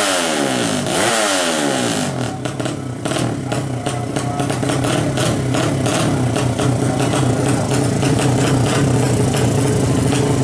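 Bored-up drag-race motorcycle engine revving in quick blips, its pitch rising and falling twice in the first two seconds, then running steadily with a fast, irregular crackle over the engine note.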